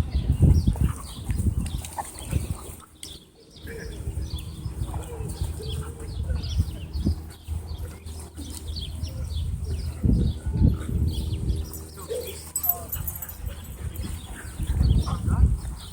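Dogs moving about and panting, with wind rumbling on the microphone in gusts and small birds chirping throughout.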